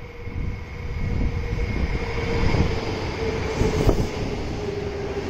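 Narrow-gauge Kintetsu Minami-Osaka line electric train moving through the station. Its wheels rumble louder over the first second, a steady high whine runs over them, and there is one sharp knock a little before the end.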